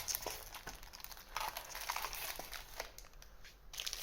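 Crinkling and rustling of trading-card packaging being handled: foil booster-pack wrappers and plastic wrap, in short irregular crackles.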